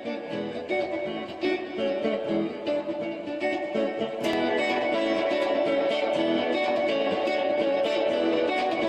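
Background music led by plucked guitar, growing fuller and louder about four seconds in.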